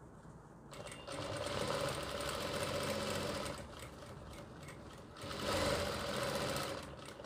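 Jack industrial single-needle lockstitch sewing machine stitching fabric in two runs of about two seconds each, the first starting about a second in and the second near the end, with a short pause between.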